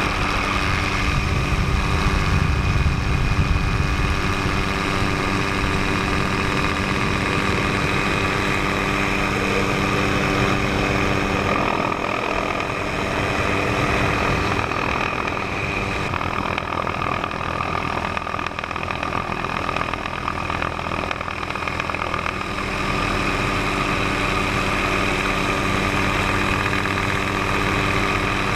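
Tour helicopter in flight: a steady engine and rotor drone with several fixed tones. The deepest rumble eases for a few seconds past the middle, then returns.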